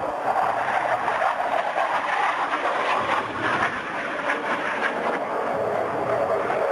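Jet engine noise from a Thunderbirds F-16 flying overhead as it banks and rolls: a loud, steady rushing sound with a wavering level.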